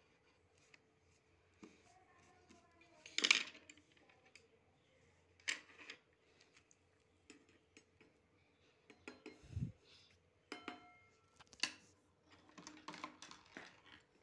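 Scattered clicks and knocks of small hard objects handled on a wooden table, with a dull bump about nine and a half seconds in and a couple of clinks that ring briefly like metal.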